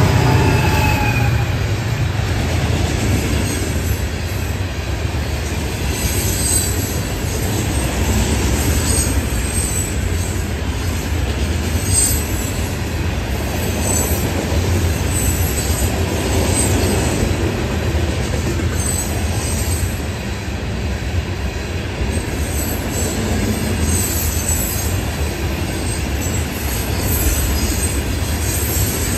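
Freight train rolling through a grade crossing: a steady low rumble from the cars and wheels, with irregular high squeals from the wheels on the rails. In the first couple of seconds the locomotive's sound falls in pitch as it goes by.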